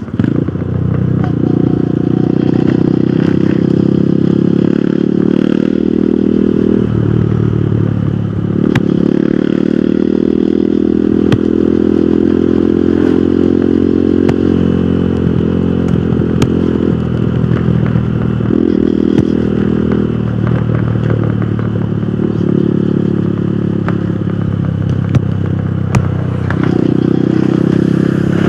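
Hero Hunk motorcycle's single-cylinder four-stroke engine running under way, its note dropping briefly and picking up again several times, with road and wind noise behind it.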